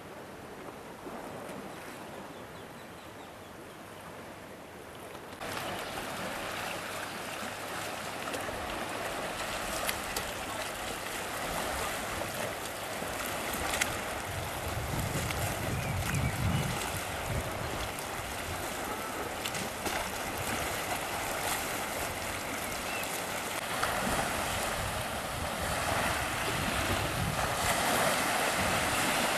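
Small waves washing onto a pebble beach, a steady hiss of surf that grows louder about five seconds in.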